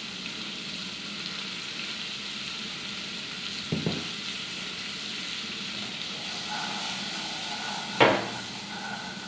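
Carrots and green peas sizzling steadily in butter in a thick-bottomed pan over a gas flame. A light knock comes about halfway, and a louder, sharper knock near the end as the pan is lifted and tossed.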